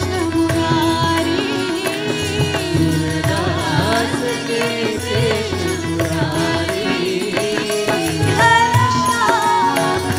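Devotional bhajan sung with instrumental accompaniment, the voice moving in ornamented, wavering melodic lines.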